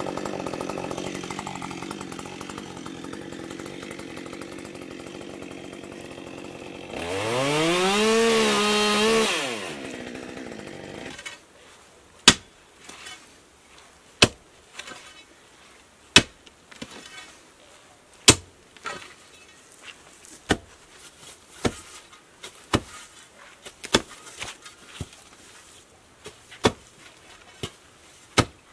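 A two-stroke chainsaw runs at idle, revs up for about two seconds, drops back and stops. Then a steel digging bar strikes frozen ground in sharp blows every second or two, making little headway in the still-frozen soil.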